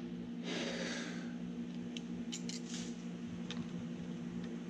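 Steel digital calipers and a small plasma-cut metal part being handled: a short sliding scrape about half a second in, then a few light metallic clicks, over a steady low hum.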